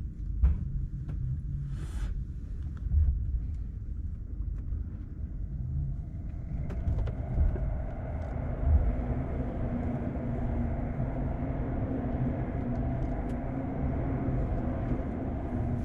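Commuter electric train heard from inside the car: a steady low rumble with a few short knocks, joined about six seconds in by a steady multi-tone hum that runs on.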